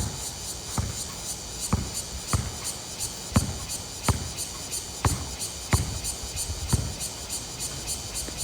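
A basketball bouncing on a hard outdoor court, about eight bounces at uneven intervals, as when it is dribbled and gathered.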